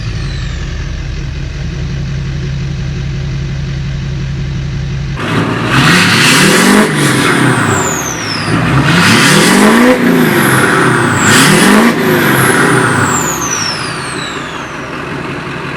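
Duramax LLY 6.6-litre V8 turbo-diesel idling through a 5-inch axle-dump exhaust, then revved three times about five seconds in. After each rev, the turbo whistles, falling in pitch as it spools down.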